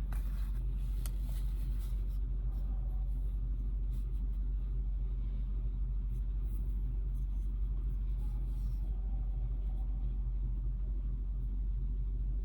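Steady low rumble with a faint even hum, unchanging throughout, with a few faint light clicks.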